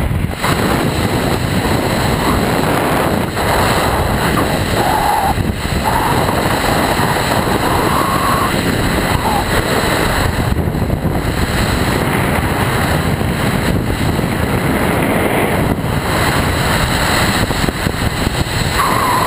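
Rushing air buffeting a skydiver's camera microphone: a loud, steady wind roar with no break.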